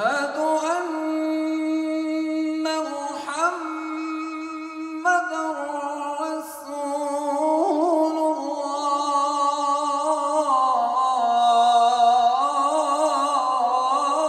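A man's solo voice chanting the adhan (Islamic call to prayer) through a microphone, in long, ornamented held notes with short breaks about three and five seconds in.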